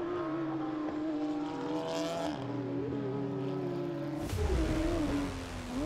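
Cupra touring race car's engine running at high revs on track, its pitch holding fairly steady and easing slightly. A deeper rumble joins about four seconds in.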